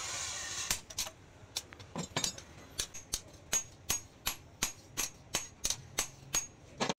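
Hand hammer striking a red-hot leaf-spring steel blade on a steel anvil, about three blows a second, each with a short metallic ring. Background music cuts off just before the blows begin.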